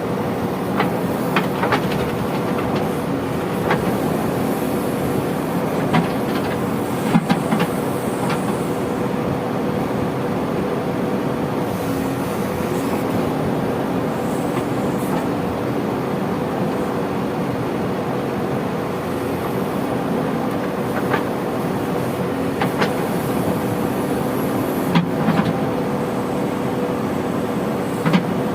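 Diesel engine of a JCB 3DX backhoe loader running steadily at working speed, with scattered sharp knocks, most in the first several seconds and again near the end.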